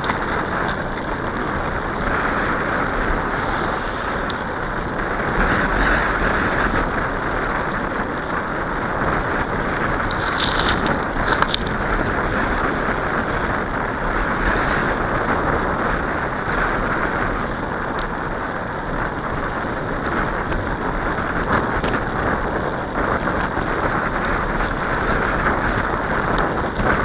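Bicycle riding along a paved path: a steady rush of wind and tyre noise, with faint mechanical ticking and rattling from the bike.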